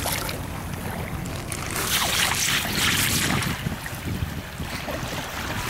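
Wind buffeting the microphone over small waves lapping on a pebble shore, with a stronger gust of rushing noise from about two seconds in for a second or so.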